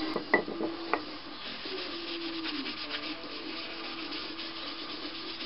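A wad of paper kitchen towel wiping hard wax oil onto bare wood, a steady scratchy rubbing in quick strokes. It seals the timber as a first coat. A couple of light knocks come in the first second.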